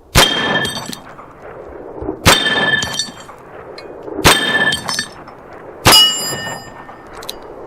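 Four shots from a .44 black powder cap-and-ball revolver (a replica 1858 Remington), fired about two seconds apart, each bang followed by a short metallic ringing tone.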